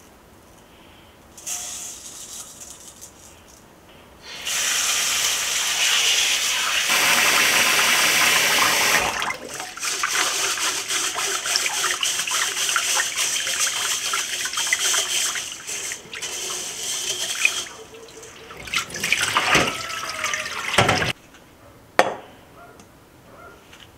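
Kitchen tap running into a bowl as rice is washed by hand in a stainless-steel mesh sieve, the grains swished and rubbed in the water. The running water stops after about a dozen seconds, followed by quieter swishing and handling of the sieve and bowl, and one sharp click near the end.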